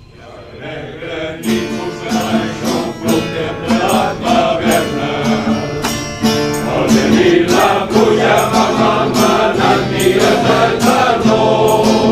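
A choir's song with strummed guitar accompaniment fades in over the first two seconds and carries on at a steady beat: the opening of the choir's Easter song.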